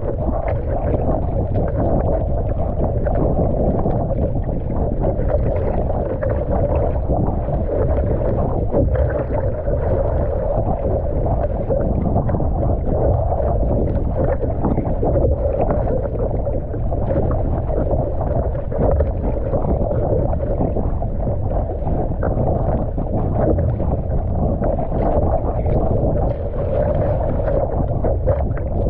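Wind buffeting the microphone over the rush and slap of choppy water against a surfski's hull, with the splash of paddle strokes, in a crosswind and cross chop.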